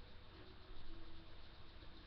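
Faint room tone: a steady low hum with light background hiss and no distinct event.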